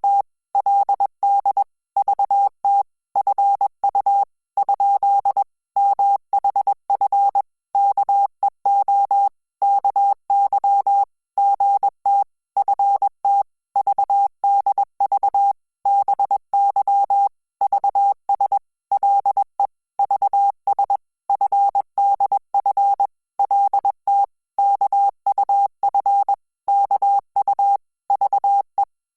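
Morse code sent as a single steady beep keyed on and off in short dots and longer dashes, spelling out Korean text in Hangul Morse at 20 words per minute.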